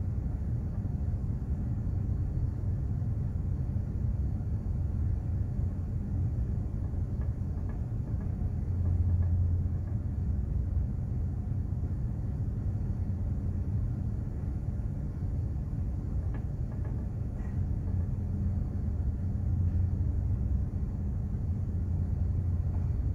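Container ship under way at sea: a steady low rumble with a faint hum, swelling slightly about nine seconds in.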